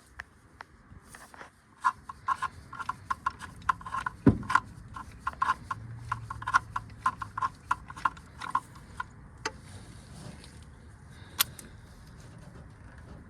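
Socket ratchet clicking in quick, uneven runs while spark plugs are being loosened, with one sharper knock about four seconds in and a few single ticks near the end.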